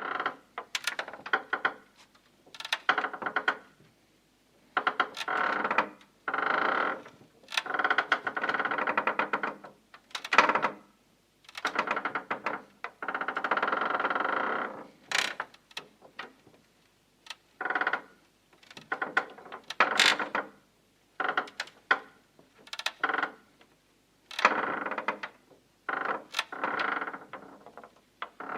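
Wood creaking and squeaking under strain, in a long series of separate creaks of one to two seconds each with short gaps, broken by sharp clicks and cracks.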